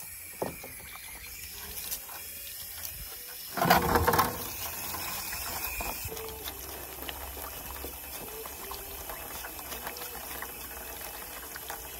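Water running steadily, with a short loud burst about four seconds in.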